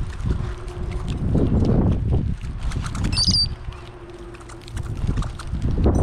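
Brown-headed cowbirds pecking and scrabbling in seed on a wooden tray feeder right beside the microphone: a dense run of taps and scratches. A short high bird call comes about three seconds in.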